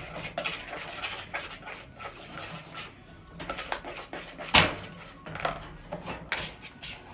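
A utensil clicking and tapping against a container while slime is stirred, with one louder knock about four and a half seconds in.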